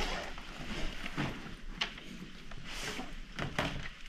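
A few scattered knocks and thuds with rustling as schoolbags are handled and set down and a chair is shifted on a tiled floor; the clearest knocks come about three and a half seconds in.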